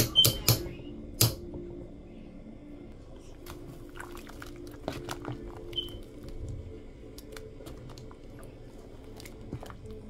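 Spoon stirring a pot of boiling soup, with a few sharp knocks against the metal pot in the first second or so and lighter clicks of the spoon later. A low steady hum runs underneath.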